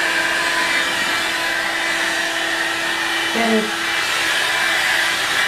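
Hot-air brush (a blow-dryer built into a round brush) running on its low setting, a steady rush of air with a constant hum underneath.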